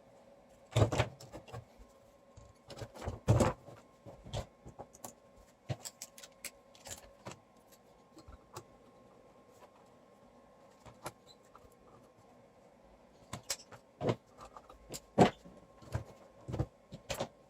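Irregular clicks and knocks of objects being handled and set down on a workbench, with a few louder thumps, over a faint steady hum.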